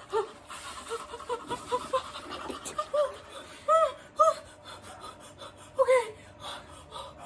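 A woman panting in quick, shaky breaths from the cold shock of near-freezing ice-bath water, with several short whimpers on the breath, the strongest around the middle and again near the end.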